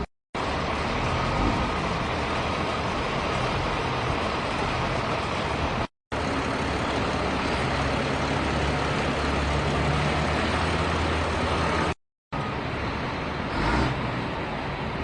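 Heavy construction machine engine running steadily, with a low hum under a noisy wash. The sound cuts out briefly three times, and there is a short louder bump near the end.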